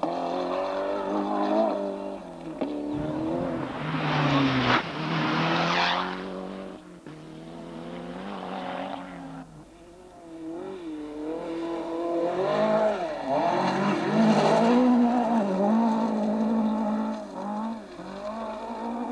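Rally cars speeding along a gravel stage, engines revving up and dropping through gear changes, with gravel hiss. Two cars pass loudest, about four seconds in and again about thirteen seconds in.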